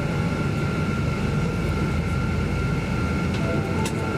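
Steady cabin noise inside a Boeing 777-200 during pushback: a low rumble and hiss with a steady high whine held over it. A couple of faint clicks come near the end.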